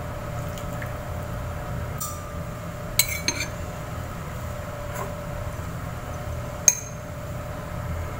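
A metal spoon clinking against a ceramic soup bowl several times, with some ringing, the sharpest clink about two-thirds of the way through, over a steady low hum.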